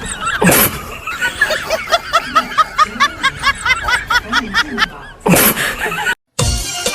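High-pitched snickering laugh in quick, evenly repeated 'heh-heh' pulses, about four a second. A whoosh comes about half a second in and another near the end.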